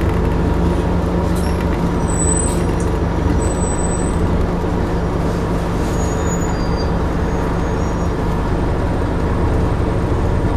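Scania N230UD double-decker bus's engine running steadily at an even pitch, heard from inside the passenger saloon. A few faint, brief high squeaks sound over it.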